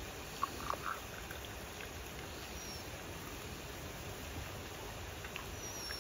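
A husky whines briefly, three short whines close together about half a second in, over a steady outdoor hiss.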